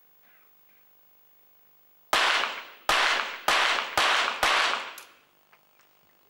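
Five rapid shots from a .22 Short rapid-fire target pistol, fired in a series lasting about two and a half seconds, each ringing briefly in the range hall. The first gap is a little longer than the rest, and the shots come quicker toward the end.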